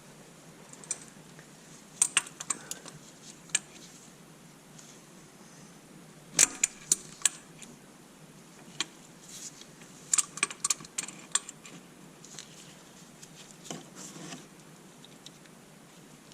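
Irregular metallic clicks and clinks of hand tools and small metal parts being handled and set down, with a few louder knocks in small clusters.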